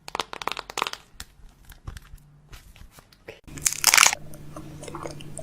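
Crinkling, crunching and clicking of packaging and containers being handled, thick in the first second and sparser after. A little past halfway comes a short loud hiss, and a low steady hum follows it.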